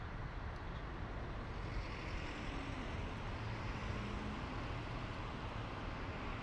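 Steady city traffic noise: a low rumble under an even hiss.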